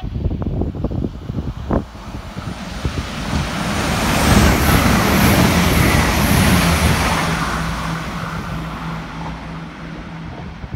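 Diesel passenger train passing through the station at speed: a swelling rush of wheels on rail and moving air, loudest about four to seven seconds in, then easing off with a steady low engine hum. A few sharp knocks in the first two seconds.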